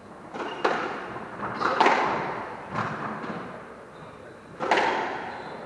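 Squash ball cracking off racket strings and court walls during a rally, about four sharp strikes roughly a second apart, each echoing in the enclosed court.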